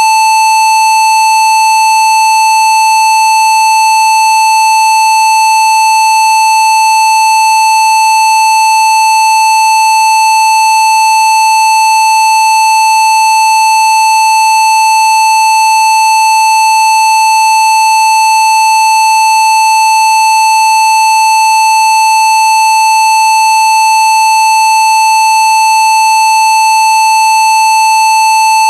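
Synthesized Rife frequency tone at about 880 Hz, held at one steady pitch without a break.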